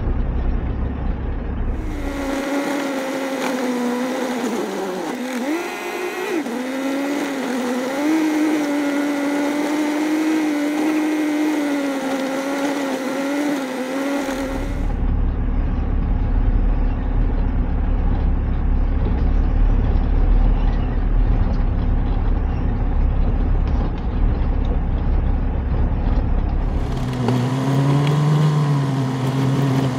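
Mercedes Vario expedition truck driving a gravel track: its diesel engine runs with a wavering note, and a low rumble from the rough surface takes over for a stretch. The sound changes abruptly about two, fifteen and twenty-seven seconds in.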